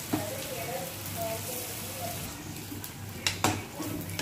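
Punugulu, fritters of rice and red-lentil batter, sizzling steadily as they deep-fry in hot oil. A sharp knock just after the start and two more in quick succession near the end.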